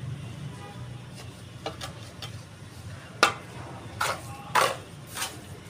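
Mason's steel trowel scraping and scooping cement mortar in a mortar pan: a handful of short scrapes and clinks, the sharpest about three seconds in and the longest a little after four and a half seconds.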